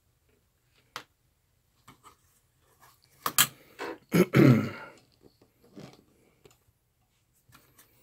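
A few sharp clicks of bench equipment being handled, the loudest pair about three and a half seconds in, followed by a man's short wordless grunt with a falling pitch.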